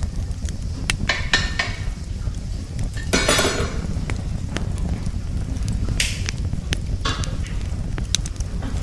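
Wind rumbling on the microphone, with scattered clicks and knocks and a short rustling burst about three seconds in.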